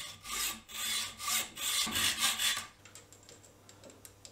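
Hand hacksaw cutting a metal bar held in a bench vise: about six quick back-and-forth strokes that stop a little under three seconds in. A few faint clicks follow.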